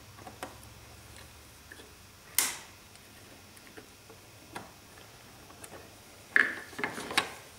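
Scattered small clicks and taps of screws being taken out of the plastic base of a Walthers model-railway transfer table and set down on a plywood board. There is a sharp click about two and a half seconds in and a burst of louder clicks near the end.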